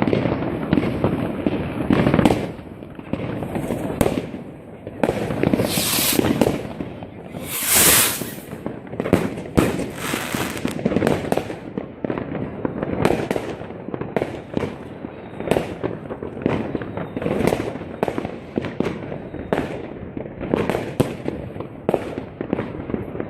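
New Year's Eve fireworks going off in a dense, continuous barrage of bangs and crackles. Two longer hissing bursts stand out about a quarter and a third of the way in.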